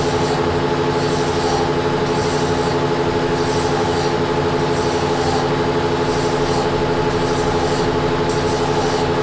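Weiler Matador lathe running steadily while a hand file is stroked against the turning workpiece in the chuck, a scraping rasp about once a second over the machine's steady hum.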